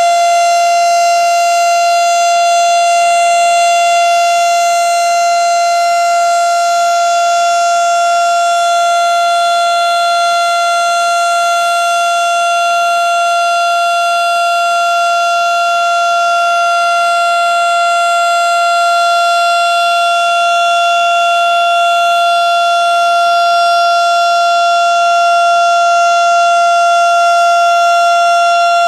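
Federal Signal STH-10 electromechanical outdoor warning siren sounding a steady alert during its weekly test: one loud, held pitch that neither rises nor falls.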